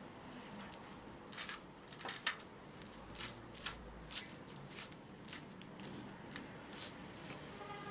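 Freshly baked flaky puff pastry crackling as it is handled and pressed by fingers: an irregular run of sharp, crisp crackles.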